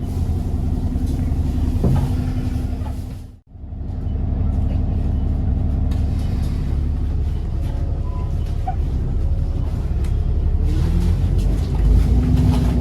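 Diesel bus engine running under way, heard from inside the bus as a steady low drone. The sound cuts out briefly about three and a half seconds in, then carries on.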